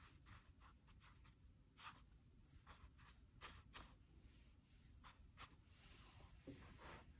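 Faint, short strokes of a large brush on watercolour paper, a dozen or so at irregular spacing, the loudest about two seconds in and a longer one near the end.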